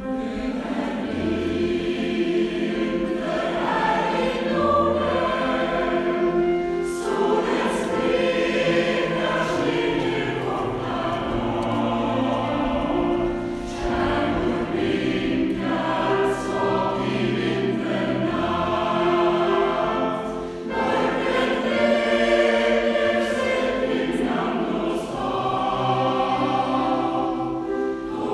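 Many voices singing a hymn together in a church, with low held notes beneath the singing that change every few seconds.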